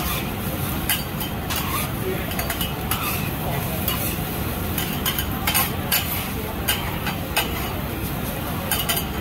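Food sizzling on a teppanyaki griddle, with a metal spatula scraping and clicking against the hot plate many times.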